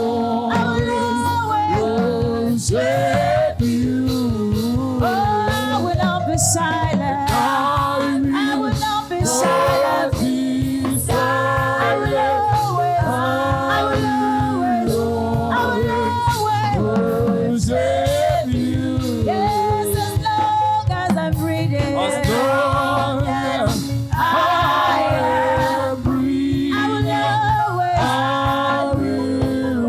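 Church choir singing a gospel praise and worship song over instrumental backing with a steady beat.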